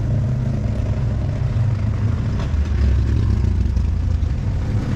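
An engine idling steadily: a low, even hum that barely changes.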